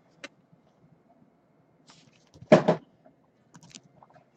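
Quiet handling of a trading card in a thick plastic top loader: a few small clicks and rustles, then one short, louder clack about two and a half seconds in.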